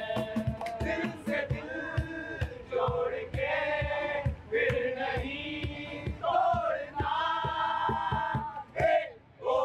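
A group of young men singing a song together, backed by a cajón beaten in a steady beat and acoustic guitars.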